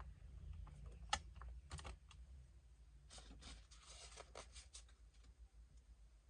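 Faint, scattered light clicks and taps of small hard laptop parts being handled, with a quick run of clicks about three to five seconds in.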